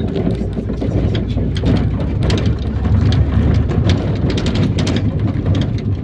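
Cabin noise inside a moving IVECO Daily minibus: a steady low engine and road rumble, with a constant patter of rattles and clicks from the body.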